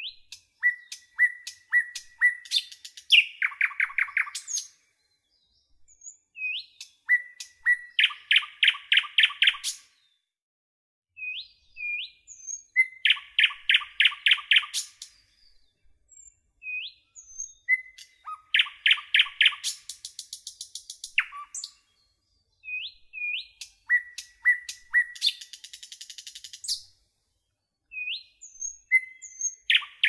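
Common nightingale singing in separate phrases, about six in the span, with short silent gaps between them. Each phrase runs from slow repeated whistled notes into fast rattling runs of rapid notes, some high and buzzy.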